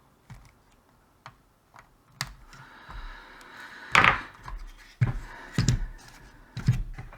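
Side cutters snipping off a newly fitted diode's excess leads: a few sharp clicks, then louder knocks and clunks as the circuit board and tools are handled.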